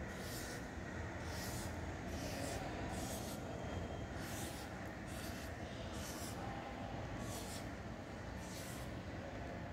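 Felt-tip sketch pen drawing wavy lines on paper: a short, soft scratch with each stroke, about one a second, over a steady low hum.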